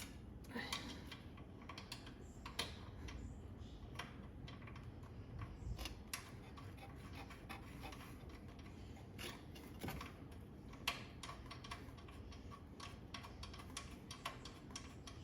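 Light metal clicks and taps at irregular intervals, denser in the later part, from hand work fitting nuts and washers onto the coilover's shock-tower mounting bolts.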